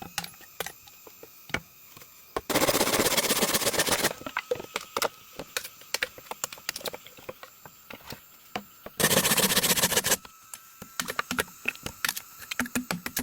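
Irregular sharp knocks and clicks, with two louder bursts of rapid rattling clicks, each about a second and a half long, a few seconds in and about two-thirds of the way through.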